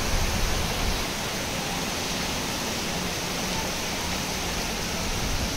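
Heavy rain pouring down steadily, very hard.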